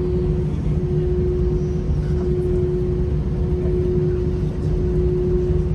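Airbus A320 cabin noise on the ground: a steady low engine rumble at low power, with a constant hum held on one pitch, heard from inside the cabin.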